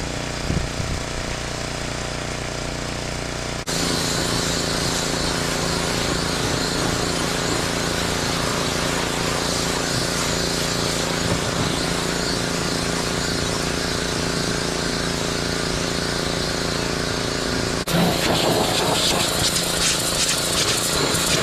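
Machinery running steadily: an engine-like hum with even tones over a hiss. It changes abruptly twice, about four seconds in and near the end, getting louder each time.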